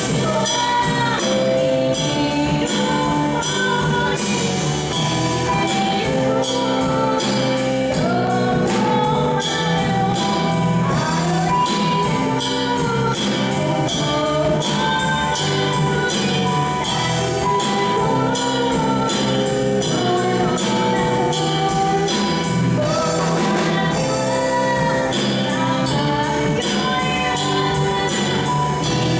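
Live rock band playing, a woman singing the lead melody into a microphone over electric bass, a drum kit keeping a steady beat, and keyboard.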